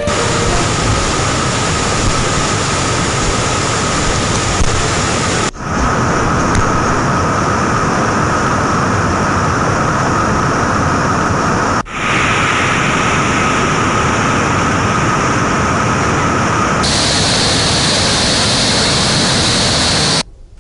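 Floodwater surging through open dam spillway gates: a loud, steady rush of water. It breaks off for a moment twice, about five and a half and twelve seconds in, turns brighter about seventeen seconds in, and cuts off just before the end.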